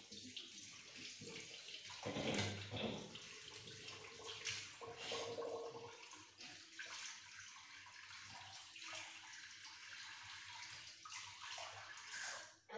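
Water running from a tap into a wash basin, with uneven louder splashes, the strongest about two seconds in.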